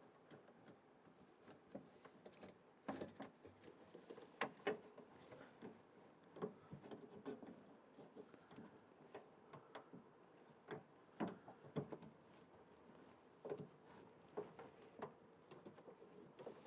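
Faint, irregular small clicks and taps of the upper door lock rod and its parts being handled and fitted to the door lock actuator inside a car door shell.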